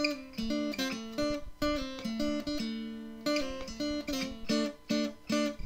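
Intro music: an acoustic guitar playing plucked notes in a steady rhythm.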